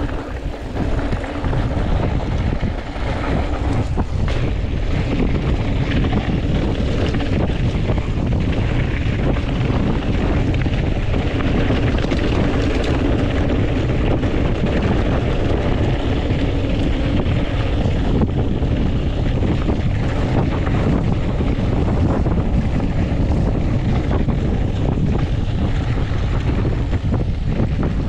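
Wind buffeting the microphone of a hardtail mountain bike rider moving at speed, over a steady low rumble of knobby tyres and the bike rattling on a loose dirt trail.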